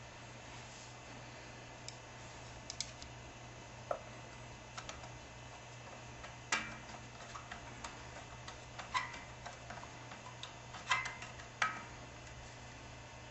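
Scattered light clicks and taps of small metal fan parts and tools being handled, irregular and spaced a second or so apart, over a faint steady hum.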